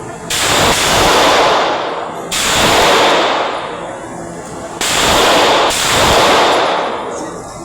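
Gunshots on a firing range: three main shots about two seconds apart, each followed by a long rumbling echo that swells and then fades.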